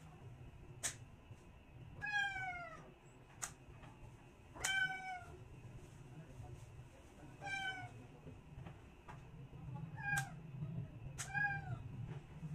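Long-haired colourpoint cat meowing five times, a couple of seconds apart, while its claws are trimmed, with a few sharp clicks of the nail clippers between the meows.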